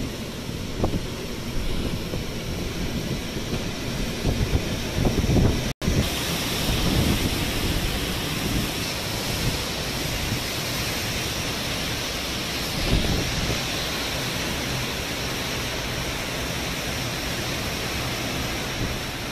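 Cyclone-force wind blowing hard, gusting and buffeting the microphone at first. After a break of an instant about six seconds in, it settles into a steadier, hissing rush as trees are lashed by the gale.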